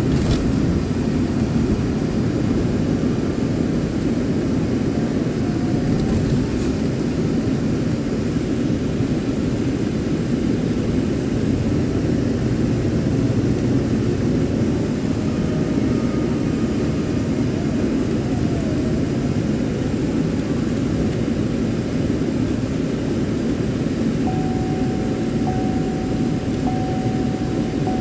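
Steady road and engine noise heard inside the cabin of a moving car, a continuous low rumble. A faint high tone comes in near the end, broken by short gaps.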